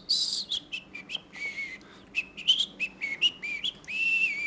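A person whistling a tune in quick short notes, with one longer held note near the end.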